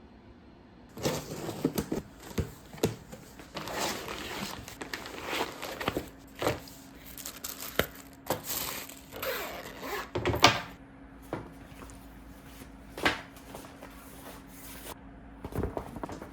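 Packaging being opened and handled: irregular rustling, crinkling and scraping with light knocks, busiest in the first ten seconds and thinning to occasional taps after that.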